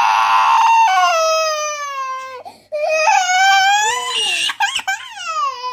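Toddler crying hard in a tantrum, demanding something to eat: three long high-pitched wails with short gasps between them, the first and last falling in pitch.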